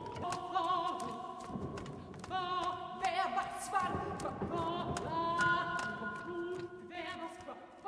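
Contemporary chamber music: a woman's voice singing held notes with wide vibrato over sustained flute and cello tones, with scattered sharp clicks or taps.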